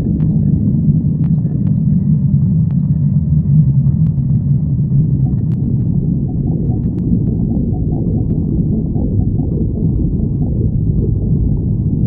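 Human stomach growling, heard close up: a continuous low rumble with a steady low tone through the first half, turning rougher and more gurgling after about five seconds.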